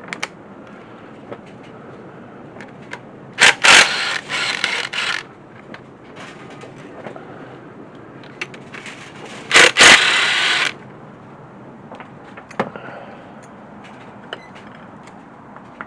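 Two loud bursts of metal tools clattering and rattling, each starting with sharp knocks and lasting a second or two, about six seconds apart, with small scattered clicks between.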